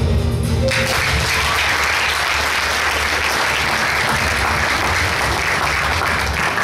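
Audience applauding, breaking out about a second in as the performance music cuts off, and clapping steadily until it fades out at the end.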